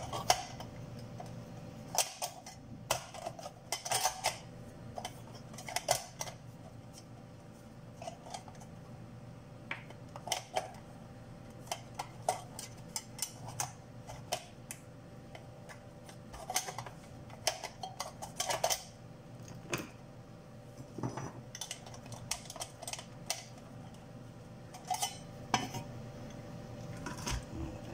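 Metal cover plate and case parts of an opened patient monitor knocking and clicking as they are fitted by hand: irregular light clicks and clatters, a few at a time, over a steady faint hum.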